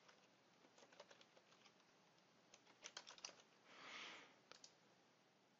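Faint computer-keyboard typing: scattered keystrokes, bunched a little past the middle. A brief soft hiss comes about four seconds in.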